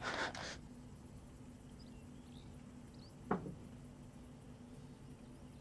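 Quiet room tone with a low steady hum, a short rustle at the start and one brief squeak falling in pitch about three seconds in, with a few faint high chirps.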